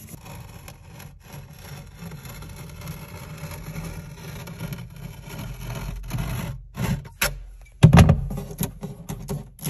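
Hand tools scraping and rubbing along vinyl contact paper as it is smoothed onto and trimmed against the inside of a wooden nightstand. Near the end come a few sharp knocks and a heavier thump, about seven to eight seconds in, as the tool is handled against the wood.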